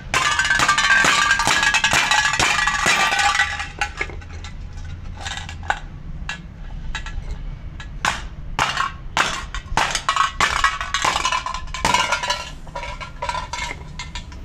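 Hammer blows on an empty aerosol spray paint can on concrete: a string of irregular metallic clanks and clinks as the can is crushed. The first four seconds or so are louder, with the strikes running together and ringing; after that the blows come singly at uneven intervals.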